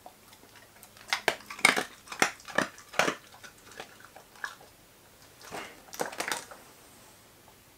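A dog crunching a small dry biscuit treat: a quick run of sharp crunches, then a few more crackles a couple of seconds later.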